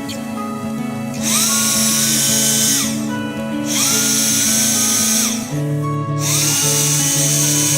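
A power drill-driver running in three bursts of about a second and a half each, every burst spinning up to a steady whine and winding down again. Background guitar music plays throughout.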